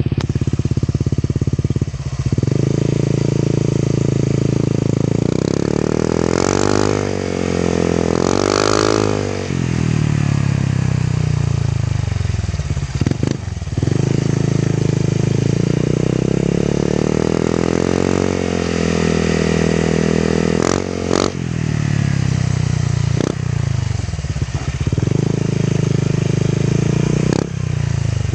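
Honda Click 125 scooter's single-cylinder four-stroke engine running through a newly fitted Exos X6 aftermarket exhaust, idling steadily and revved up and back down several times, with two quick blips about seven and nine seconds in.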